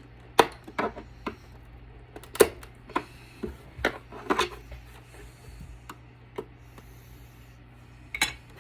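Plastic case of an APC battery backup unit clicking and knocking as it is handled and pried at to get its front cover off: a string of irregular sharp knocks, the loudest about half a second and two and a half seconds in, several more around four seconds, and one near the end.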